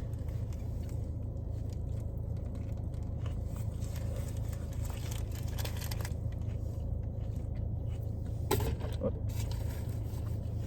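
A person chewing food, with faint scattered mouth clicks, over a steady low hum. A short vocal sound comes about eight and a half seconds in.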